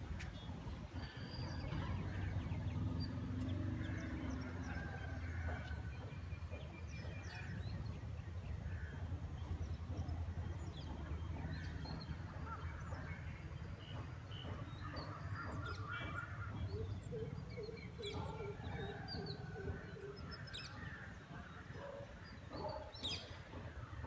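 Birds chirping and calling, many short calls overlapping, with a run of short low notes about two-thirds of the way through, over a steady low rumble.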